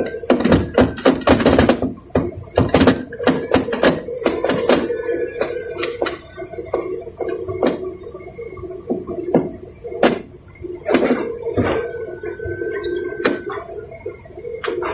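Excavator at work: the engine and hydraulics give a steady drone while metal parts clank and knock repeatedly, in a quick cluster in the first few seconds and then more spaced out.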